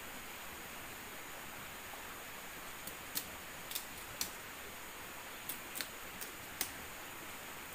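Small wood campfire crackling, with a handful of sharp pops in the second half over a steady hiss.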